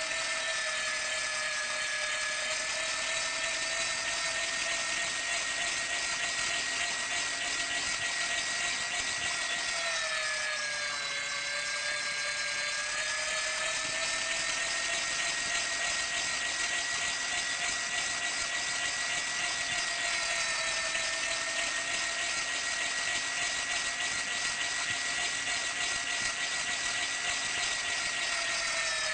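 Electric meat grinder's motor running with a steady whine, its pitch sagging for a couple of seconds about eleven seconds in and briefly again later before recovering.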